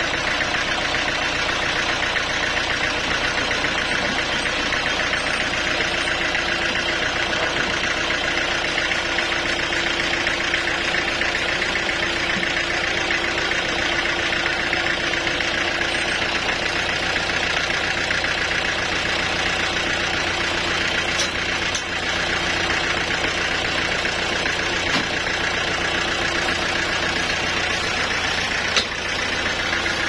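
Band sawmill's engine running steadily at idle while the log is positioned, with no cut under way. One sharp knock near the end.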